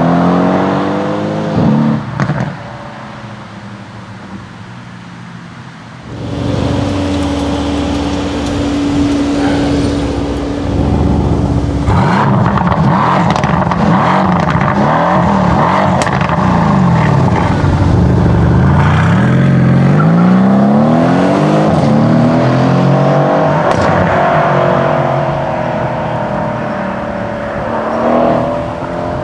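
Mercedes-AMG C63 S Estate's 4.0-litre twin-turbo V8 accelerating, its note climbing and dropping several times through the gears. The revs fall away over the first couple of seconds before it turns quieter, then grow loud again about six seconds in.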